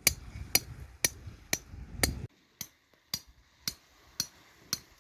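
A steady series of sharp knocks, about two a second and about ten in all, each with a brief ringing tail. A low rumble beneath them stops abruptly a little before halfway.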